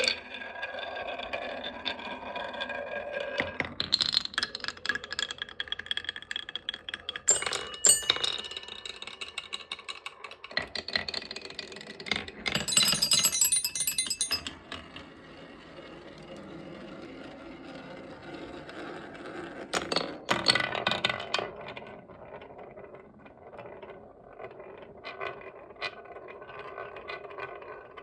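Marbles rolling and clattering down a wooden slope marble run, striking chime bars that ring out in overlapping tones. There is a dense burst of rattling about halfway through.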